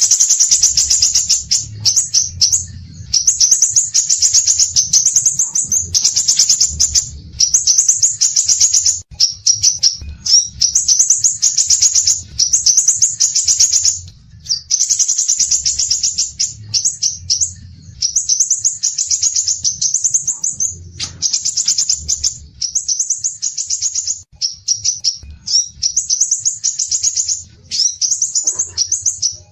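Songbird singing a fast, high-pitched chattering song in phrases of one to two seconds with short breaks between them, over a faint low hum.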